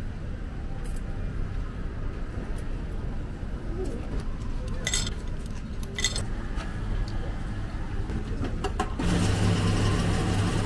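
Two sharp metallic clinks about a second apart. Then, near the end, the retro shaved-ice vending machine starts up after its selection button is pressed: a steady electric hum with a noisy whir as it begins dispensing.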